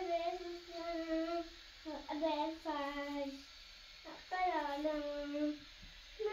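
A young child singing in three drawn-out phrases, each note held for about a second and a half and dipping in pitch at its end.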